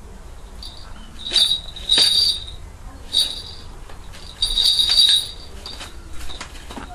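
Falconry bells on a Harris hawk jingling in four short bursts of high, clear ringing with sharp clicks; the last burst, near the end, is the longest.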